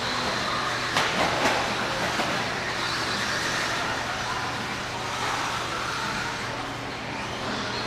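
Electric stock-class RC buggies racing on an indoor dirt track: a mix of motor whine and tyres scrabbling over dirt, echoing in the hall. A couple of sharp knocks come about a second in, as cars land or hit the track edging.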